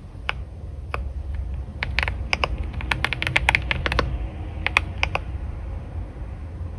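Typing on a computer keyboard: irregular keystrokes in short bursts that stop a little over five seconds in, over a steady low background rumble.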